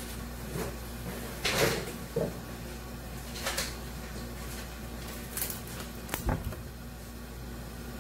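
A few irregular knocks and clatters of kitchen things being handled, the loudest about one and a half seconds in and a dull thump near the end, over a steady low hum.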